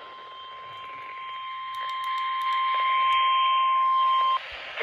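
Emergency Alert System warning alarm tone, the single 1050 Hz attention signal used by NOAA Weather Radio, announcing a severe thunderstorm warning. It is one steady high beep that grows louder over the first few seconds and cuts off near the end.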